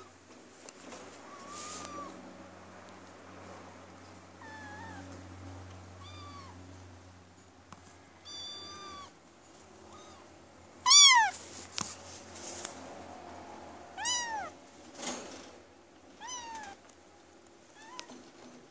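A litter of newborn kittens and puppies nursing on a mother cat, giving short, high-pitched mewing cries: about ten of them scattered through, the loudest about eleven seconds in.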